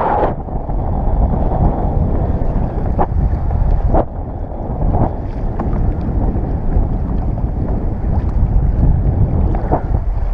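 Heavy wind noise on the microphone over choppy sea water around a kayak, with a few short sharp knocks or splashes.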